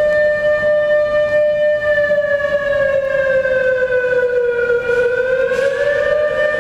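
Civil defense siren sounding a drill alert: one long, steady wail that sags a little in pitch about two seconds in and climbs back to its earlier note near the end.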